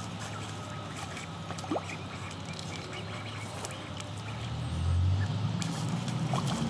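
Domestic ducks quacking at the water's edge, over a low hum that swells about five seconds in.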